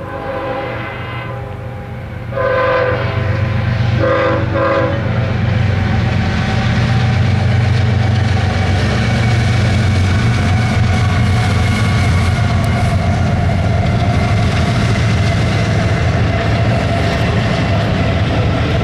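CSX freight diesel locomotives passing at speed, the air horn sounding with two louder blasts about two and four seconds in, over the engines' low drone. Then the steady rumble and wheel noise of double-stack container cars rolling by.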